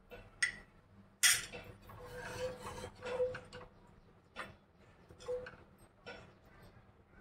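A spoon and dishes clinking and scraping, with a string of sharp clanks, the loudest about a second in, and a short ringing tone after some of them.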